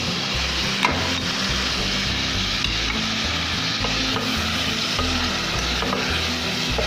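Tomatoes, onions and spices frying in oil in an aluminium pot, a steady sizzle as a wooden spoon stirs them, with a sharp knock about a second in and a few lighter clicks later.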